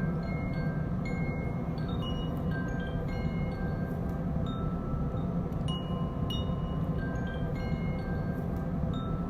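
Chimes ringing at irregular moments, one high clear tone after another at different pitches, each fading away, over a steady low drone.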